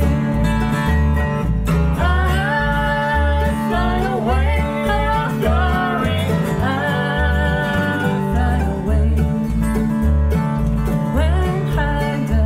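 Live acoustic bluegrass band playing: strummed acoustic guitar, mandolin and plucked upright bass, with the bass keeping a steady beat of about two notes a second under a moving melody.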